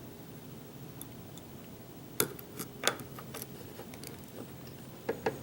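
Sparse small metallic clicks from a hook pick and tension wrench working the pin stack of a custom challenge lock fitted with torpedo security pins. There are sharper single clicks about two and three seconds in, and two close together near the end.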